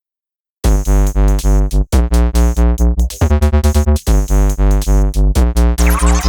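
Electronic background music: synthesizer chords over a heavy pulsing bass beat, starting about half a second in.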